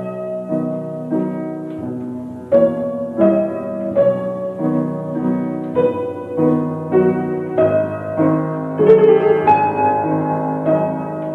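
Piano music: a slow run of struck chords and single notes, each ringing on.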